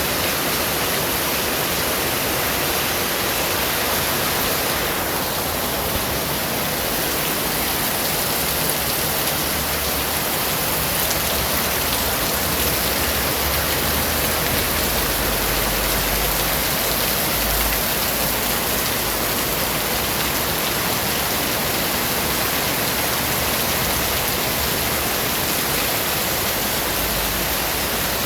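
Steady rain. A low rumble of distant thunder swells about halfway through and again near the end.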